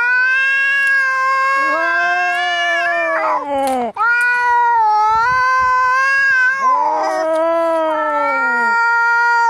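Angry cat caterwauling: long, drawn-out yowls that rise and fall in pitch, three in a row with short breaks between, the kind of threat call cats make when facing off in a fight.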